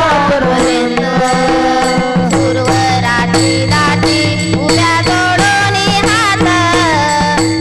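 Devotional song: a voice sings a wavering, ornamented melody over a steady held drone and a regular drum beat.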